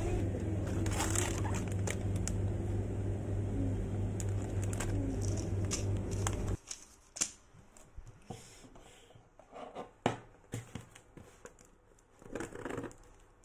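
A steady low hum that cuts off abruptly about six and a half seconds in, followed by light rustling and scattered clicks of small things being handled.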